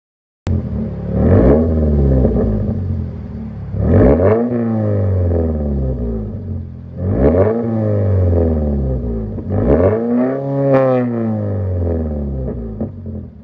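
2019 Toyota 86's flat-four engine revved four times at a standstill through a muffler-delete and resonator-delete exhaust, loud. Each rev rises quickly in pitch and falls back to idle.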